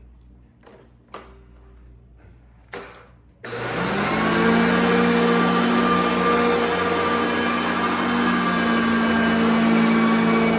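A few faint clicks, then about three and a half seconds in a Hoover Concept upright vacuum cleaner switches on, its motor spinning up and settling into a steady whine.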